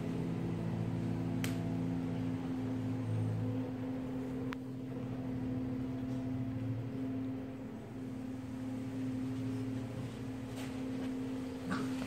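Dogs play-fighting, with a low continuous growl that swells and dips every couple of seconds, and a few light knocks.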